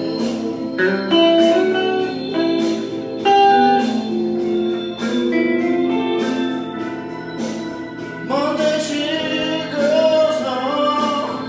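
Blues music: an electric guitar plays an improvised line of held and bent notes, with a singing voice in the music.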